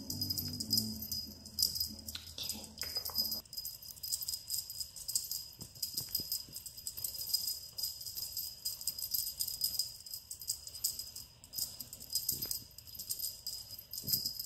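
Small bells jingling in quick, irregular shakes, as on a cat teaser toy being waved about. A few low, steady musical tones sound under it in the first three seconds.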